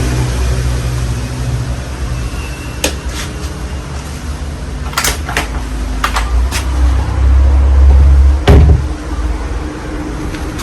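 Casablanca Halogen Star ceiling fan running with four blades: a steady low rumble that swells for a moment near the end, broken by about six sharp clicks, the loudest about eight and a half seconds in.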